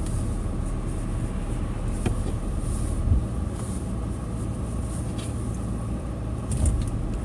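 Steady low rumble of a car heard from inside the cabin, with a few faint ticks.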